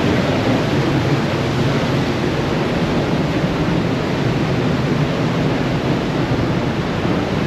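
Waterfall rushing at close range: a loud, steady wash of falling water.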